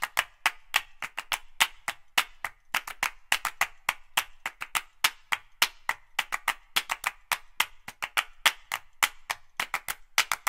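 Percussion-only background music: quick, uneven clapping and wood-block clicks, about five a second, with no melody.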